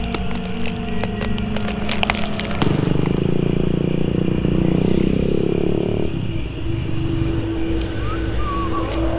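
A car drives past, its engine loudest from about three to six seconds in and then fading, over a steady low drone. Sharp crackling clicks come in the first couple of seconds.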